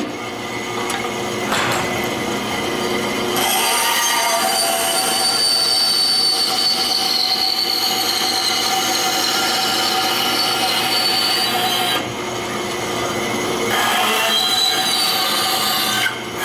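Bandsaw running and its blade cutting through wood, a steady whine with a high cutting hiss on top. The hiss comes in a few seconds in, drops away for a couple of seconds about twelve seconds in, then returns.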